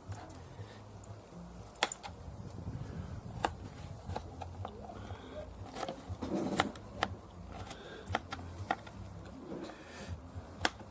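Small kitchen knife tapping on a plastic cutting board while chopping garlic cloves finely: irregular sharp taps, about one or two a second.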